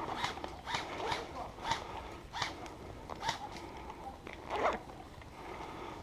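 Footsteps with rustling of clothing and gear, about three steps a second, slowing and stopping about five seconds in.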